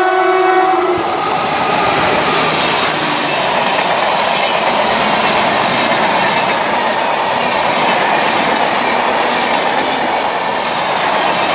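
WAP-4 electric locomotive's horn sounding and cutting off about a second in, followed by the steady rush and wheel clatter of its Shatabdi Express coaches passing at high speed.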